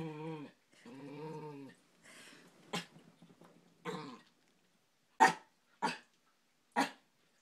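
Miniature pinscher growling in play: two drawn-out growls, then a few short, sharp barks about half a second to a second apart near the end.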